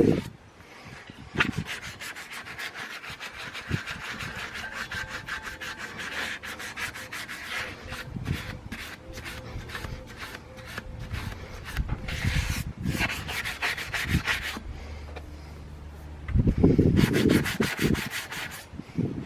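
Abrasive paper being rubbed by hand over a car alloy wheel in quick back-and-forth strokes while the kerb damage is sanded down. There is a louder stretch of dull knocking near the end.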